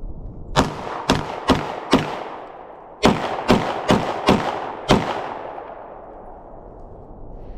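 9mm pistol shots fired in two quick strings, four shots and then five after a pause of about a second, each followed by a short echo.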